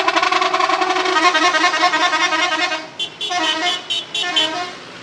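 Indonesian bus 'telolet' horn, a multi-tone musical horn, sounding one long rapidly pulsing blast of about three seconds and then two shorter blasts.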